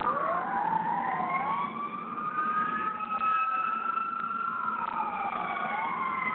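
Emergency vehicle siren wailing, its pitch slowly rising and falling, with several overlapping tones crossing one another. The presenter takes it for an ambulance rather than a police car.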